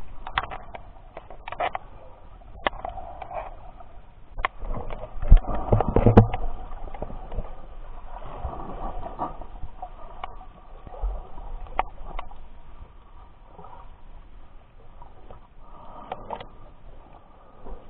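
Muffled underwater water noise from a swimming snorkeler's movements, with scattered clicks and knocks, the loudest about five to six seconds in.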